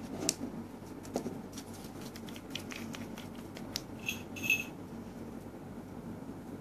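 A glass nail polish bottle being handled and opened: small clicks and taps, then two short ringing clinks about four and a half seconds in, over a steady low hum.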